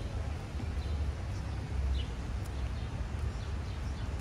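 Outdoor ambience: a steady low rumble with a few short, high, falling bird chirps scattered through it.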